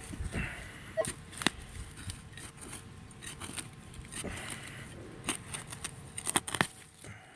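Scraping and rustling of soil and roots being worked by hand in a dig hole, with scattered sharp clicks.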